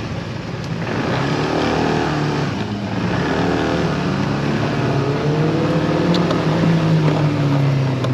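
Motorcycle engine accelerating, its pitch rising in three pulls with short breaks between as it shifts up through the gears, over a steady rush of road and wind noise.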